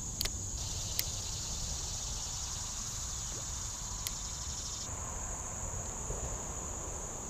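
Steady high-pitched drone of an insect chorus. A second, lower layer of insect song joins about half a second in and drops out around five seconds. A few sharp clicks come near the start, at about one second and at about four seconds.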